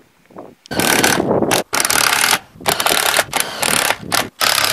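Cordless drill driving self-tapping screws through the metal flange of a pipe-boot flashing into corrugated steel roofing. It runs in several short bursts, the first starting under a second in, with brief pauses between.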